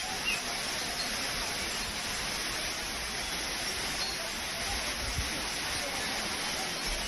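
Waterfall: a steady, even rush of falling water, with a brief high chirp just after the start.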